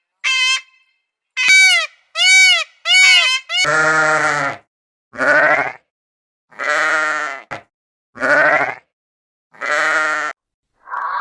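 Farm animal bleating: five long quavering bleats, starting about three and a half seconds in. Before them comes a quick series of short, high, arching calls.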